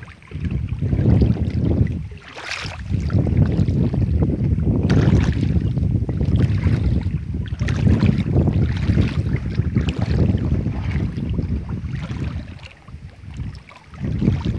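Wind buffeting the microphone: a loud, gusty low rumble that drops away briefly about two seconds in and again near the end.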